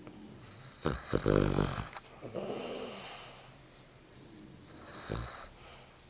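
Cavalier King Charles Spaniel snoring in its sleep: a loud, fluttering snore about a second in, then a long hissing breath, and a shorter snore near the end.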